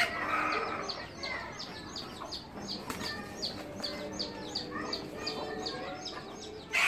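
A flock of hens clucking and murmuring as they forage, with a louder call at the start and another just before the end. Over them runs a rapid series of short, high, falling chirps, about four or five a second.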